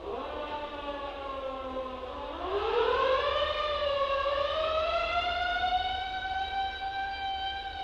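Fire truck's mechanical siren winding down, then spun up again about two and a half seconds in to a loud, held wail that creeps slightly higher.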